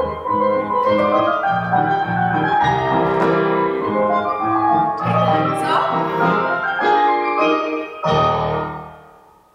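Solo piano playing classical-style accompaniment for a ballet barre exercise, closing on a final chord about eight seconds in that fades away.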